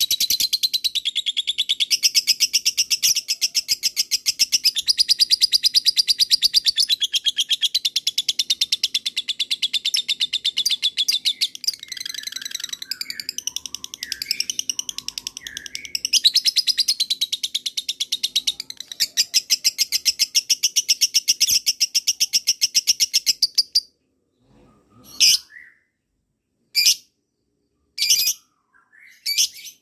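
Lovebird singing a long 'ngekek': a fast, unbroken chatter of sharp, high notes. In the middle it loosens into a few lower, broken chirps, then picks up again. Near the end the chatter stops and gives way to a few separate short calls.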